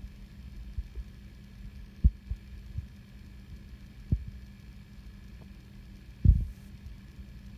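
A low steady hum with dull thumps from the hand-held recording device being handled, about two, four and six seconds in, the last the loudest.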